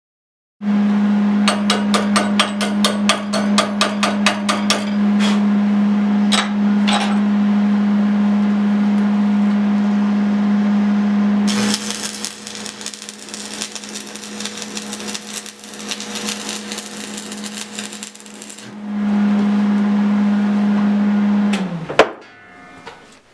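Stick (arc) welding on a steel pipe fitting: a loud steady electrical hum from the arc welder, with the electrode crackling and sputtering as the arc is struck. About halfway through the hum gives way to the arc's steady frying hiss and crackle; near the end the hum returns, drops in pitch and stops, followed by a sharp click.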